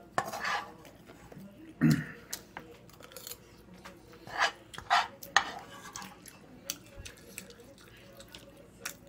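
A metal spoon clinking and scraping against a frying pan as fried rice is scooped up, in a series of sharp clicks, with some chewing in between.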